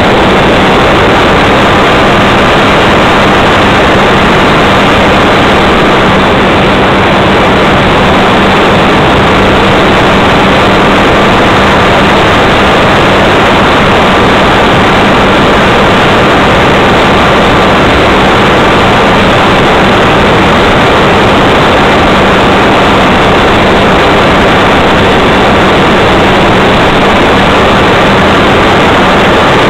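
Loud, steady drone of a radio-controlled model airplane's motor and propeller mixed with wind rush, picked up by a camera mounted on the plane in flight. It has a constant low hum underneath and does not change in pitch.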